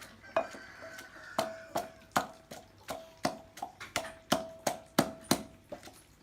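Pestle pounding Indian borage leaves and limes in a mortar: a steady run of knocks, about three a second after a short pause near the start, each leaving a brief ringing tone from the mortar.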